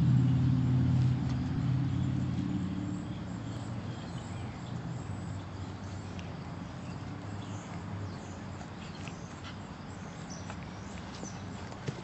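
A low engine hum fades away over the first three seconds. After that come faint rustling and scattered small clicks as a puppy noses and paws through leafy ground cover, with a few sharper ticks near the end.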